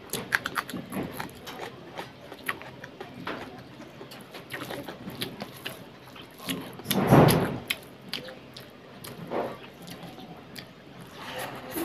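Close-miked eating: crisp sharp bites and chewing of a raw green chilli, with a hand mixing curry-soaked rice. One louder stretch, under a second long, comes about seven seconds in.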